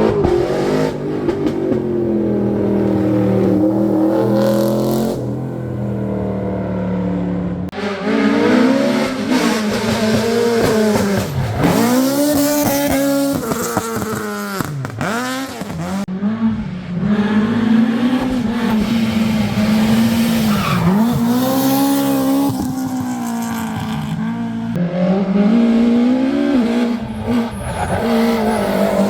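Historic rally car engines at full throttle on a special stage, the pitch climbing and then dropping at each gear change, again and again. The sound changes abruptly about a quarter of the way in.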